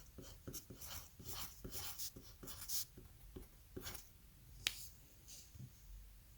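Quick, scratchy strokes of a pen on paper, several a second, with one sharp click about four and a half seconds in.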